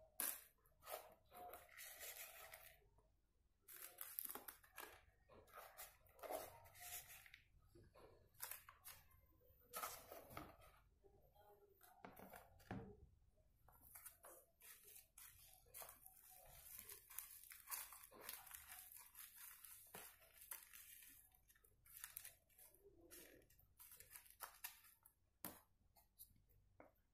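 Metal spoon scraping and clicking against a plastic bowl and a clear plastic container as crumbled biscuit mixture is scooped, dropped in and pressed down: a faint, irregular run of short scrapes, taps and crumbly rustles.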